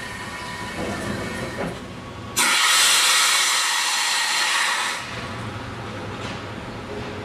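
Pressurized water spraying out of a bleed fitting on a hot tapping machine's housing: a loud hiss that starts suddenly about two seconds in and dies away after about two and a half seconds, over a steady mechanical drone.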